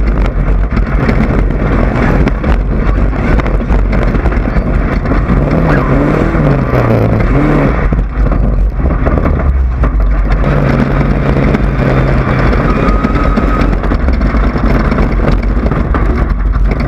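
Desert race buggy running at speed: loud engine and dense, rough noise without letup, the engine note wavering up and down about five to eight seconds in.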